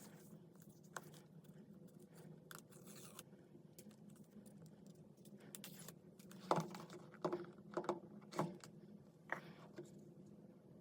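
Unboxing an iPhone 14 Pro Max: scattered scratches, tearing and clicks of the packaging being handled, with a run of louder sharp knocks and rustles between about six and nine seconds in, over a faint steady hum.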